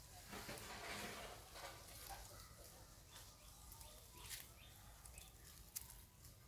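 Quiet outdoor ambience with a few faint, short rustles and light clicks.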